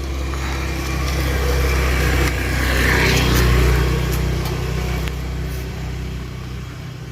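A motor vehicle passing on a nearby road: a low engine hum that grows louder to a peak about halfway through, then fades away.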